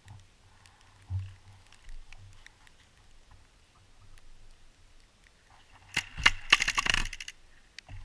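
A rapid string of paintball marker shots, a dense run of sharp pops about six seconds in, after a mostly quiet stretch with a single knock about a second in.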